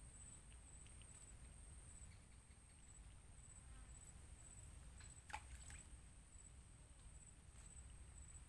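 Near silence: faint outdoor ambience with a steady, high, pulsing insect trill and a low rumble, and a single faint click about five seconds in.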